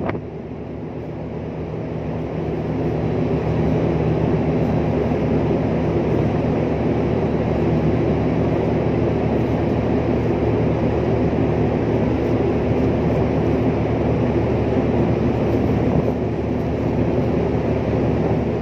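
Steady drone of a ship's onboard machinery, a low hum made of several fixed tones, swelling over the first few seconds and then holding level.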